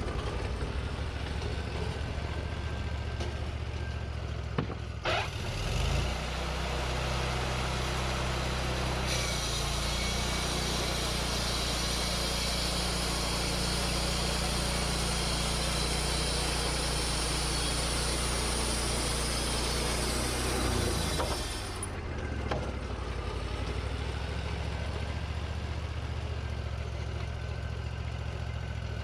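Engine of a Wood-Mizer LT40 portable bandsaw sawmill revving up from idle about five seconds in, then the band blade cutting through a white pine log with a steady hiss for about twelve seconds, before the engine drops back to idle near the end of the cut.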